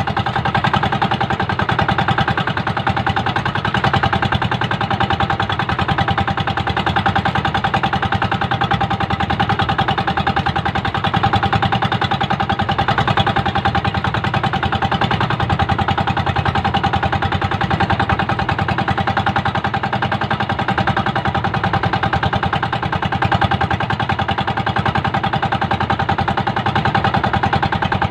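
Small engine of a motorized outrigger fishing boat (bangka) running steadily at trolling speed, with a fast, even firing beat.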